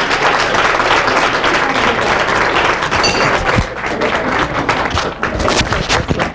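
Audience applause: many hands clapping together in a large hall, a dense steady patter that cuts off suddenly at the end.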